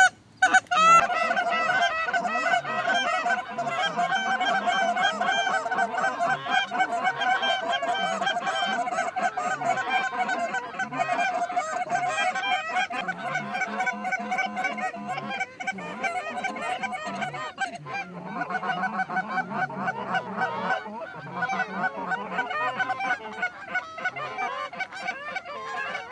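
Hunters' Canada goose calls blown hard in a rapid, overlapping stream of honks and clucks, nearly without pause, calling a high flock of migrating geese down to the decoys.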